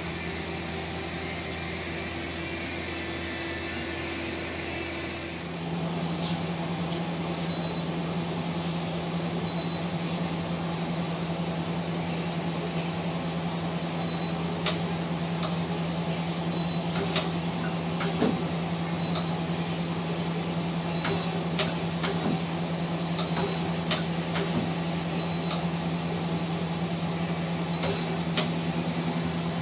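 Okuma LB4000 EX CNC lathe running with a steady machine hum. From about five seconds in, its live-tooling turret indexes between tool stations with scattered sharp clicks, while a short high beep sounds about every two seconds.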